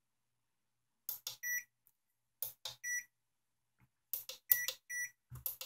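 ESR meter in use on a faulty electrolytic capacitor: sharp clicks, several of them followed by a short, high electronic beep, about four beeps in all.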